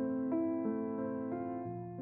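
Soft background music: a gentle keyboard melody with evenly spaced notes, about three a second.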